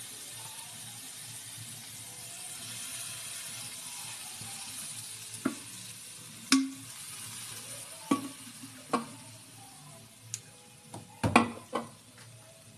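Liquid sizzling in a hot wok as Sprite is poured in over a whole chicken with soy sauce and calamansi, a steady hiss that slowly dies down. Several sharp knocks, the loudest pair near the end.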